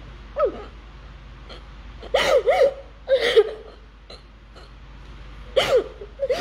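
A woman sobbing into a handkerchief: a short wavering cry about half a second in, then gasping sobs around two and three seconds in and again near the end.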